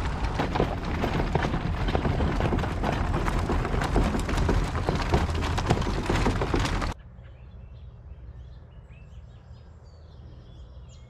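Electric cargo bike towing a kayak trailer rolling over a dirt trail: a steady rumble full of crackling and rattling. About seven seconds in it cuts off suddenly to a quiet outdoor background with birds chirping.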